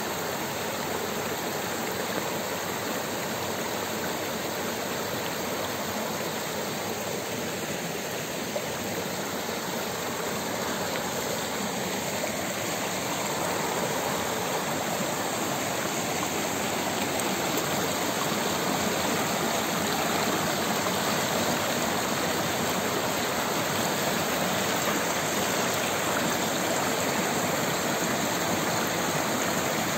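A rocky stream running over boulders and small cascades: a steady rush of water that grows a little louder about halfway through.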